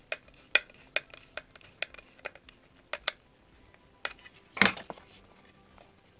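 Sharp metallic clicks, about two a second, as a hand screwdriver turns a screw into a wooden phone-holder assembly. A single louder knock follows a little after four seconds in.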